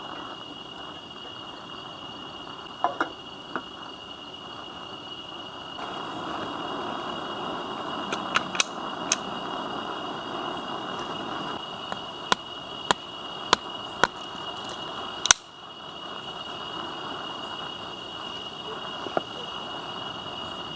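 Steady high-pitched chirring of crickets and other insects, with a rushing hiss that grows louder about six seconds in and scattered sharp clicks and knocks; the loudest click comes about fifteen seconds in, and the hiss drops right after it.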